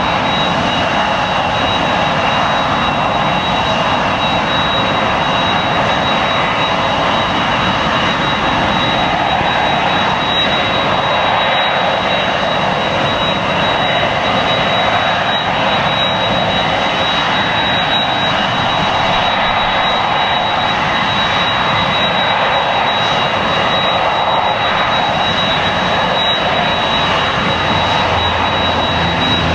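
Boeing 767-300 jet engines running at taxi power as the airliner rolls toward the listener, a steady engine noise with a thin, high, steady whine over it. A deeper rumble builds near the end.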